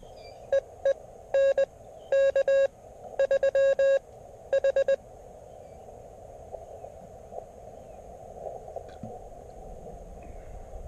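Morse code (CW) from an Elecraft KX3 transceiver: groups of loud keyed beeps of one steady pitch, short and long, over the first five seconds. After that comes the receiver's steady hiss with faint tones.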